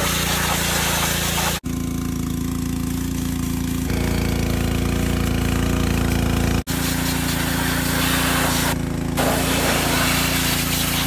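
Pressure washer running with a steady pump hum while its water jet hisses against a tractor engine and frame. The sound cuts out abruptly twice for an instant, and the spray hiss is much weaker for a couple of seconds after the first cut.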